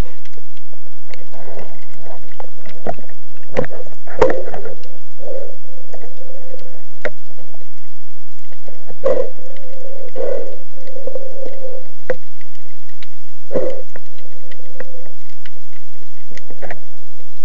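Underwater sound picked up by an action camera in its waterproof housing as a spearfisher swims along a rocky bottom. Irregular sharp clicks and knocks sound over a muffled, hollow rush of water that swells and fades.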